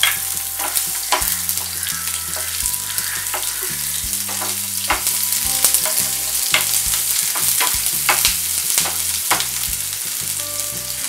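Chopped onions sizzling in hot oil in a nonstick frying pan, with a steady hiss and the short knocks and scrapes of a wooden spatula stirring them about once a second.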